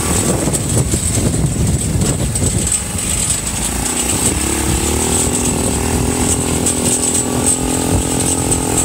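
Small engine of an open-frame off-road buggy running under way on a rough dirt trail, with knocks and rattles from the frame. Its note climbs briefly about four seconds in and then holds steady.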